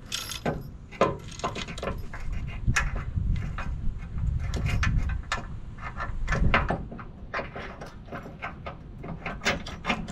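Irregular metal clicks and knocks as a new boat-trailer leaf spring is fitted into its hanger bracket, over a low rumble that swells in the middle.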